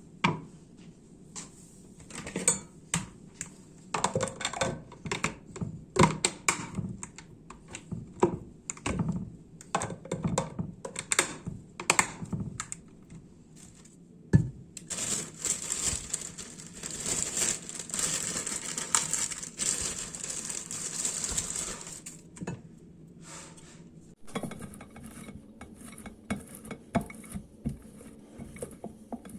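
Kitchen handling sounds: dishes and utensils clinking and knocking in irregular strokes, then a steady hiss lasting about seven seconds, then a run of quick, light ticks.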